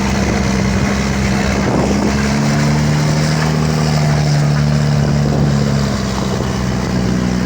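City bus diesel engine running loudly with a steady rumbling drone. Its note changes pitch about two seconds in and then holds.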